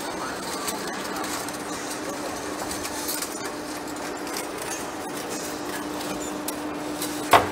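Large lathe turning a heavy steel workpiece, the cutting tool scraping through the metal over a steady machine hum. A sharp knock near the end.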